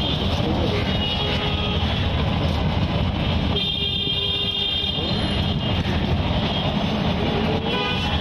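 Street traffic: a steady rumble of passing vehicles with horns tooting, briefly just after the start, then a longer horn about three and a half seconds in lasting over a second, and again near the end.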